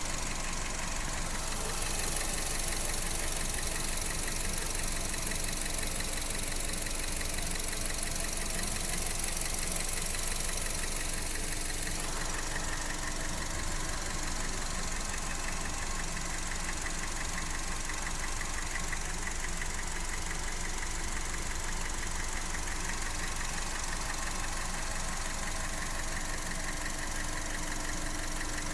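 Honda R18A1 1.8-litre four-cylinder engine running at idle with a repetitive knocking whose source is unknown; the owner has listened everywhere and cannot locate it.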